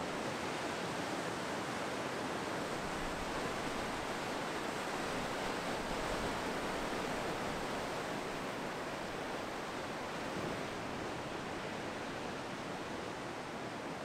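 Ocean surf breaking and washing up the beach: a steady, even rush of waves with no single break standing out.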